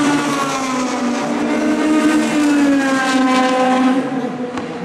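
Formula racing car engine running at high revs along the straight, its pitch falling and rising, then fading about four seconds in.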